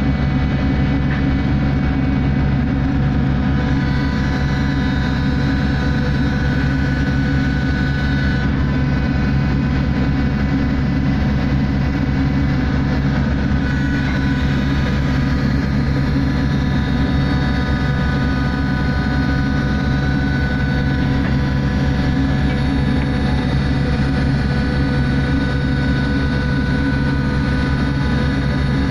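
Survey ship's engines and onboard machinery running with a steady, loud drone, a low hum with several steady whining tones above it.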